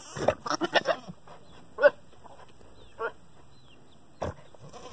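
Billy goat in rut making its courtship noises: a quick run of short sputtering pulses in the first second, then two single short calls about two and three seconds in.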